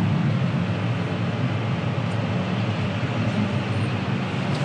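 John Deere 6R tractor engine running steadily while the tractor drives, an even low drone with no change in pitch.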